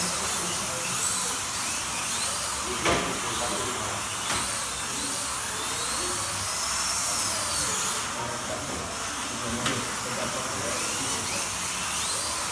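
Slot cars' small electric motors whining, their pitch repeatedly rising and falling as the cars speed up and slow down around the track. A sharp knock comes about three seconds in and another near ten seconds.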